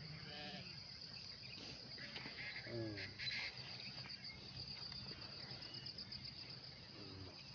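Insects chirring in a steady, rapidly pulsing high trill, with a couple of faint short calls about half a second and three seconds in.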